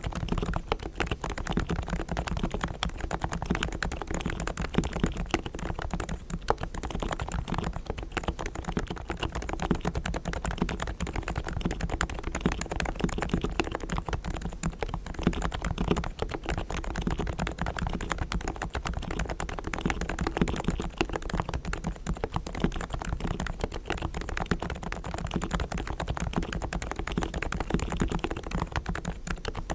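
Typing on a Realforce R3 tenkeyless silent Topre electrostatic-capacitive keyboard with 45 g equal-weight switches, its springs, sliders and stabilizers fully lubed. The keys are struck in a rapid, continuous stream of short key presses.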